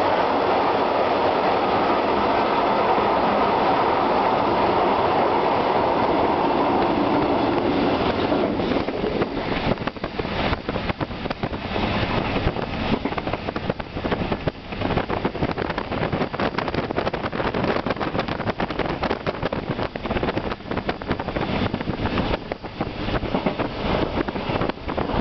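Train running noise heard from inside a moving Intercity coach. For the first eight seconds or so there is a steady, dense rumble while a Hamburg S-Bahn class 474 runs close alongside. After that it turns into a rougher rattle with irregular knocks from the wheels on the track.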